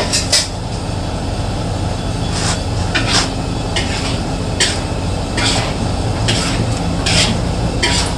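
Metal spoon scraping against an aluminium wok as fish pieces are stirred through a thick spice paste, in short irregular strokes about one a second, over a steady low rumble.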